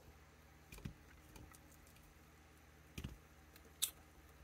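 A few faint plastic clicks and taps as nunchucks are pressed into an action figure's stiff plastic hand. The sharpest click comes near the end.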